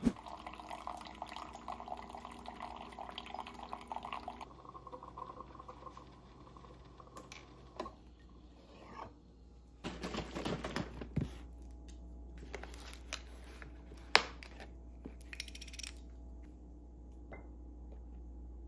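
Making coffee: a Keurig coffee maker runs with a steady hum and hiss for the first few seconds, then drops to a lower hum. After that a mug and spoon clatter and clink on the countertop, with one sharp clink a little past the middle and a few light taps near the end.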